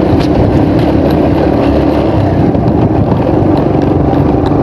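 Small motorcycle being ridden over a rough dirt road: loud, steady running rumble with a faint engine tone and small rattling ticks.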